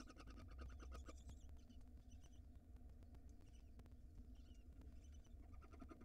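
Barn owls in a nest box giving a faint, fast chittering call in the first second, then a few short chirps spread through the rest, over a low steady hum.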